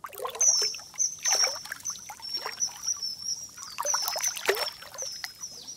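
Logo intro sound effect: water trickling and splashing, with short high chirping notes repeated throughout.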